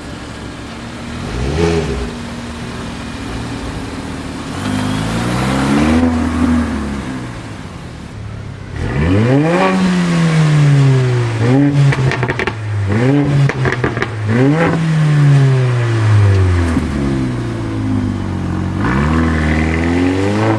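Supercar engine revving in a series of quick blips, its pitch jumping up and falling back again and again, with one longer rev that slowly winds down.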